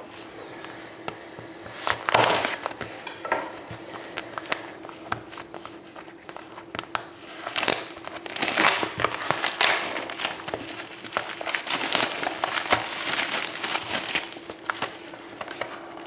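Plastic wrapping on a trading-card box and its packs crinkling and crackling as it is torn open and handled, in irregular bursts with many sharp clicks, heaviest about two seconds in and again through the middle. A faint steady hum runs underneath.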